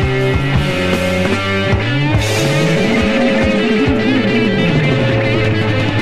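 Early-1970s German krautrock recording: a rock band playing electric guitar and drums at full volume, with steady drum hits under sustained guitar lines.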